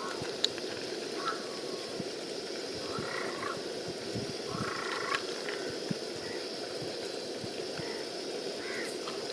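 Frogs croaking: a few short pitched calls over a steady background chorus.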